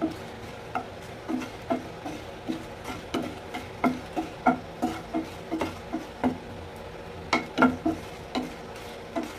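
Wooden spatula knocking and scraping against a nonstick frying pan while stirring dried red chillies as they dry-roast. The knocks are short and irregular, about two or three a second.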